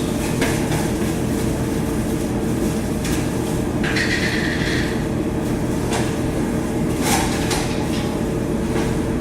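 A steady low rumbling hum with a faint steady tone in it, with a few short clicks and a brief rustle about four seconds in.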